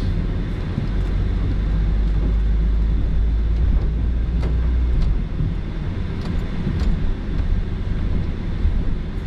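Van rolling slowly over a snow-covered road, heard from inside the cab: a steady low rumble of engine and tyres, heavier for the first half and easing after about five seconds, with a few sharp clicks.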